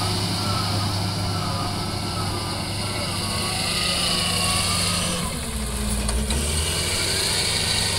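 Wheel loader's diesel engine running steadily as the machine drives and lifts a loaded bucket, with a faint wavering whine above the engine note. The engine sound deepens briefly about five seconds in.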